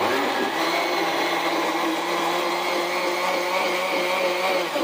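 Electric juicer-blender motor running, its blade whirring through chopped muskmelon, milk and sugar in the jug to blend a milkshake. The hum is steady with a slight rise in pitch in the first second, and the motor stops near the end.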